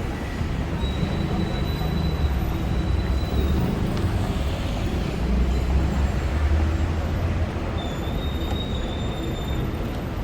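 Steady low rumble of heavy city traffic, with a thin high squeal or whine that comes and goes twice.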